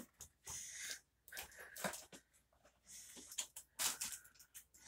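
Plastic and cardboard toy packaging being handled, rustling and crinkling on and off with a few small clicks.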